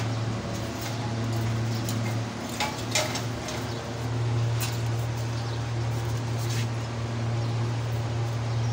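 Wire rabbit cage rattling and clicking a few times as it is handled, the sharpest rattle about three seconds in, over a steady low hum.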